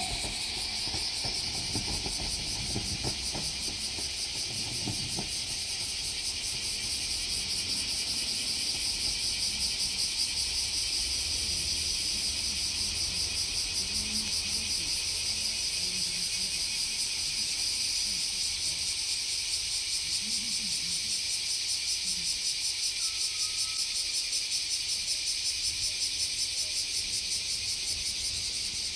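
A loud, steady chorus of cicadas, a dense high-pitched buzz with a fast pulsing. There is a low rumble under it for the first few seconds.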